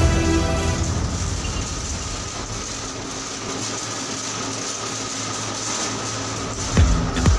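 Steady drone of a ship's engine-room machinery running, with a constant low hum. A few short knocks come near the end.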